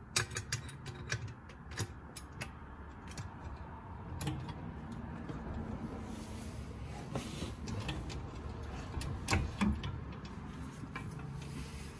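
Hydraulic trolley jack being pumped, with scattered clicks and knocks as it lifts a car's front hub and suspension arm.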